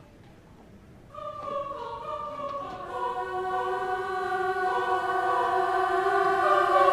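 Choir singing a held chord: voices come in about a second in, more notes join over the next two seconds, and the chord swells steadily louder.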